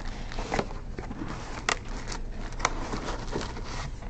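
Cardboard retail box being opened by hand: flaps and packaging rustling, with several sharp clicks and snaps.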